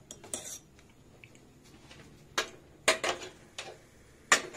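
A few sharp clicks and taps, spaced irregularly, from a gas stove's burner knobs being turned and the burners handled while the flame is tested at its lowest sim setting.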